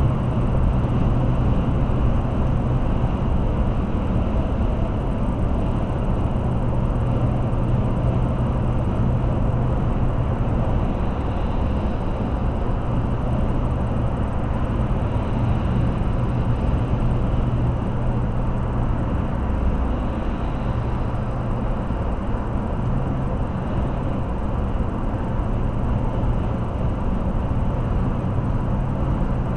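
Steady road noise inside a car cruising at highway speed: tyre and wind noise over a low, even engine drone.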